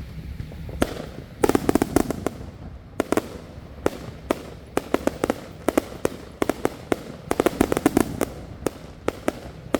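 Consumer fireworks going off in a rapid, irregular string of sharp bangs, some bunched into quick clusters, over a low rumble.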